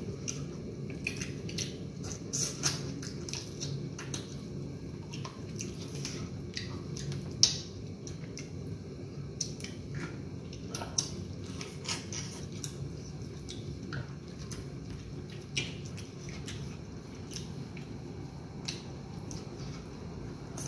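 Eating sounds of egusi soup with fufu: wet squishing and smacking of chewing, with scattered short clicks and knocks, the loudest about seven seconds in, over a steady low hum.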